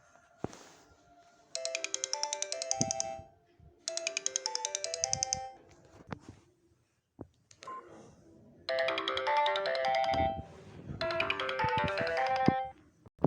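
Sony Ericsson mobile phone ringtone: a short electronic melody of rapidly pulsing notes plays twice, then, after a pause with a few clicks, plays twice more, louder and fuller.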